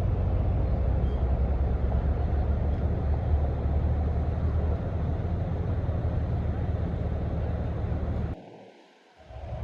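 Steady low rumble of outdoor background noise. It cuts off abruptly about eight seconds in, falls almost silent for about a second, then returns.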